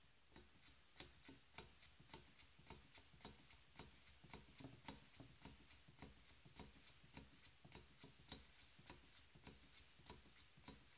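Faint, quick clicking of a perfume bottle's spray pump being pressed down again and again through a syringe fitted onto its stem, about three clicks a second, pumping the fragrance up into the syringe.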